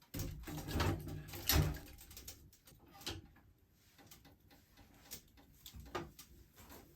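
A run of heavy thuds and knocks starting suddenly, loudest in the first two seconds, then a few lighter scattered clicks and knocks.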